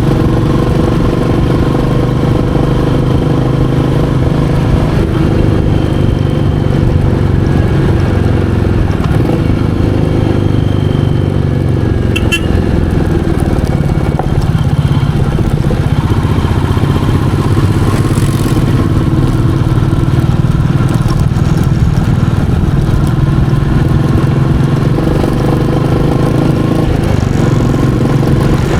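Royal Enfield Meteor 350's single-cylinder engine running steadily under way, its note easing a little about halfway and picking up again near the end.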